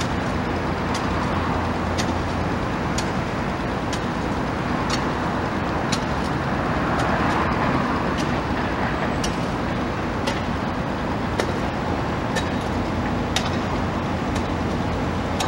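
Steady engine rumble, swelling slightly around the middle, with sharp clicks about once a second.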